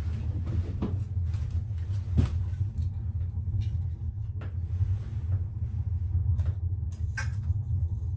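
A steady low hum with a few scattered short knocks and clicks.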